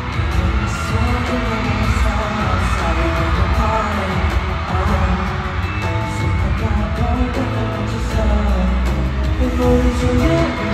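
Live K-pop concert performance: a pop song with singing over a heavy, pulsing bass beat.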